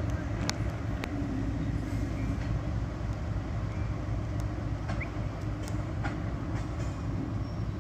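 Diesel locomotive running while freight cars roll along the track: a steady low rumble with scattered sharp clicks and a brief squeak about five seconds in.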